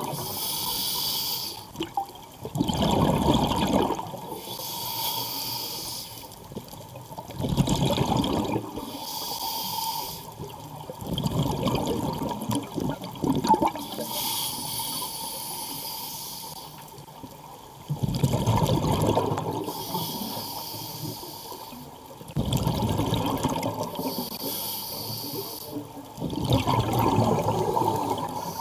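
Underwater scuba regulator breathing. Each slow inhale hisses through the second stage, then the exhale rumbles out as a burst of bubbles, about six even breaths in turn.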